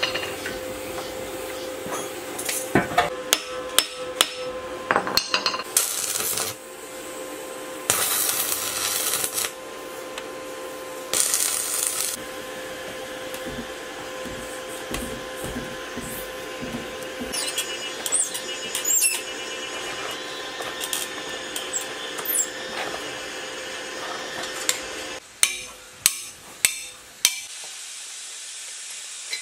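Hand tools knocking, clinking and scraping on the rusted metal parts of a 1115 diesel engine as it is taken apart, with three short bursts of hiss in the first half. Near the end comes a quick run of about five loud, sharp strikes.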